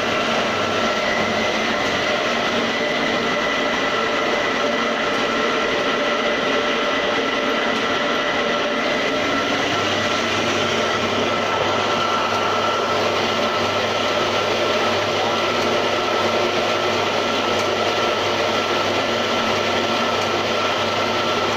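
Homemade tofu-straining machine running steadily, its electric motor driving the swinging strainer, with a steady high whine and a low hum that joins about nine seconds in.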